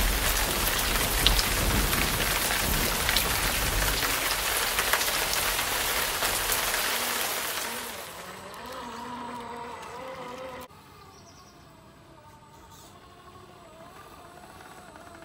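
Steady rain hiss with a low rumble of thunder, which dies away about halfway through. Then it is quieter, with a faint wavering whine from the electric drive motor of a radio-controlled Land Rover Series III 109 scale crawler.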